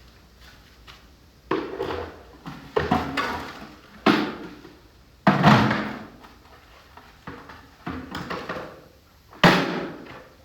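A run of five or six heavy thumps and knocks, each sudden and then dying away, coming a second or two apart.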